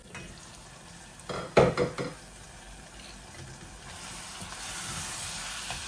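A glass saucepan lid is lifted off with a short clatter of metal and glass about a second and a half in. Then the shutki bhuna frying in the open pan sizzles, the hiss growing louder toward the end.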